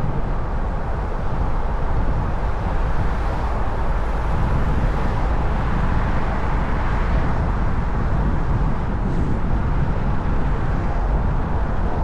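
Steady, loud vehicle and road noise: a dense low rumble with no separate events.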